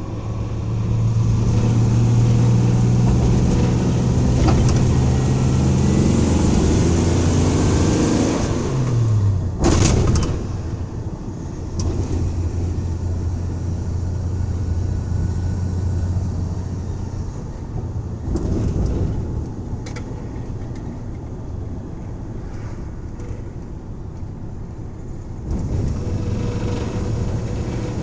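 1984 Dodge van engine under load with a steady low drone, its pitch dropping about nine seconds in as it shifts, then a sharp clack and steadier, lower running; louder again near the end. The engine is being run hard to check for a suspected misfire at wide-open throttle.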